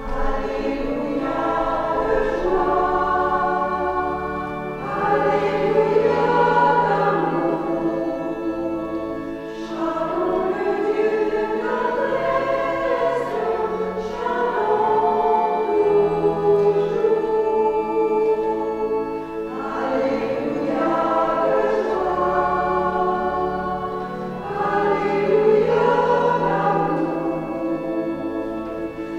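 A small church choir singing in phrases of about five seconds: the sung acclamation before the Gospel reading.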